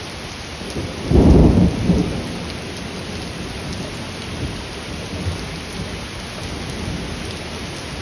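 Heavy rain pouring steadily onto pavement in a thunderstorm, with one loud, deep clap of thunder about a second in that lasts about a second.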